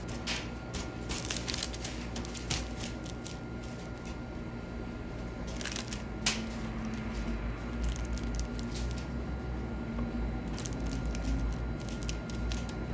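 Metal cookie cutters pressed into soft butter cookie dough and set down with irregular light clicks on a stainless steel worktable, with dough scraps peeled away, over a faint steady hum.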